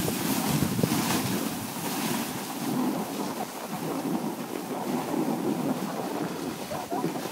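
Wind rushing over the microphone and a steady swish of snow as the camera operator slides downhill behind a snowboarder.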